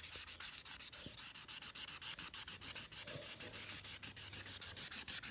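Felt tip of an Imagine Ink marker scrubbing back and forth on a coloring book page, rubbing on the paper in quick, even strokes.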